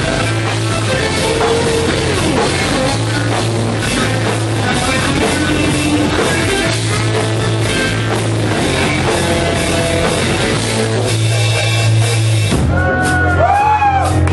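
Live punk rock band playing loud: electric guitars, bass and a drum kit, with a repeating bass line and a few sliding notes near the end.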